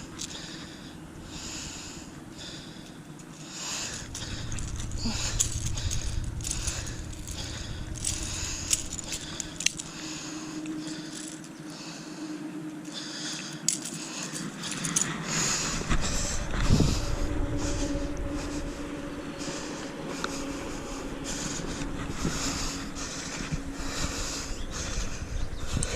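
Pliers working lure hooks out of a bass's mouth: scattered light metallic clicks, rattles and scrapes, with wind rumbling on the microphone at times.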